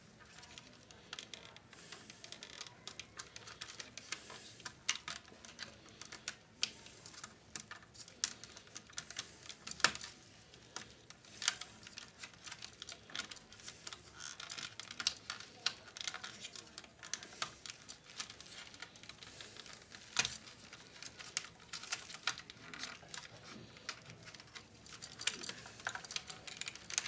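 Irregular small clicks, ticks and rustles of hands handling wires and plastic parts inside the open case of a Philips D6350 cassette recorder, with a few sharper clicks about ten and twenty seconds in.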